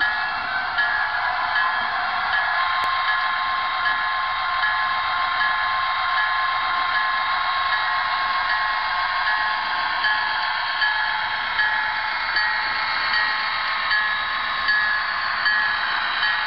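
HO-scale model Amtrak push-pull commuter train running under DCC sound: a steady diesel running sound from the model's small onboard speaker, with no bass. A regular clack comes slightly faster than once a second.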